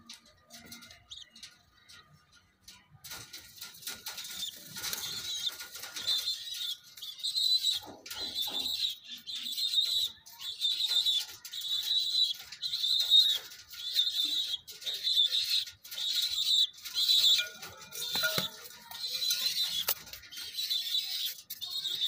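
Domestic pigeons flapping and rustling their wings. A high-pitched chirping repeats a little more than once a second behind them from about three seconds in.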